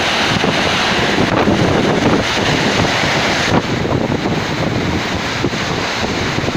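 Heavy rain and strong wind of a summer thunderstorm, a loud dense rush with wind buffeting the microphone. It eases slightly about three and a half seconds in.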